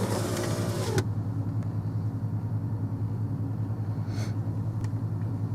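Car engine idling with a steady low hum, a hiss over it that cuts off about a second in.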